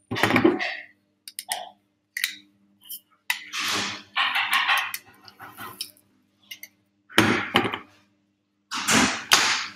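Small nonstick frying pan knocking on the gas hob's grate and a silicone spatula scraping in it as a pancake is turned over: a string of short, irregular clatters and scrapes.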